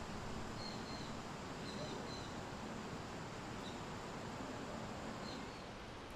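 Steady outdoor background hiss with a few faint, brief high bird chirps scattered through it.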